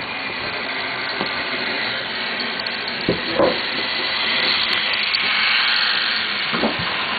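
Motorised toy trains running on plastic track: a steady whirring hiss from the small motors and wheels, louder for a few seconds past the middle as a red locomotive comes close, with a few light clicks.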